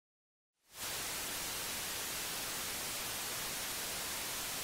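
Steady hiss of television static, fading in quickly about half a second in.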